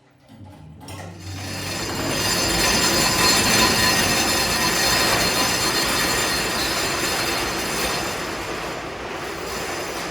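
Loud, steady metal-on-metal screech with a high whine over it, building up over about two seconds and easing off near the end.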